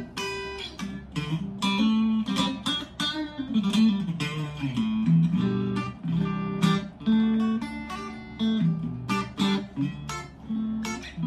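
Harley Benton Modern Strat SSH electric guitar played through an amplifier at low volume: a picked phrase of separate notes and chords, one after another with short gaps between them.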